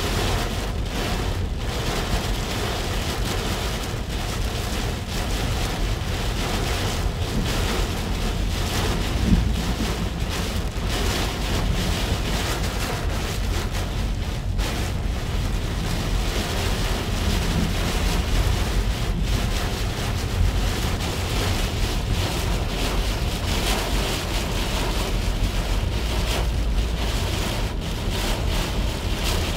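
Heavy rain drumming on a car's roof and windshield, heard from inside the cabin while driving, over a steady low rumble of the car on the wet road. A single brief louder knock about nine seconds in.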